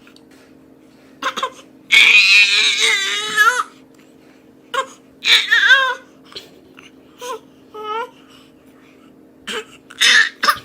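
A baby crying and fussing in several short, high wavering wails, the loudest and longest about two seconds in.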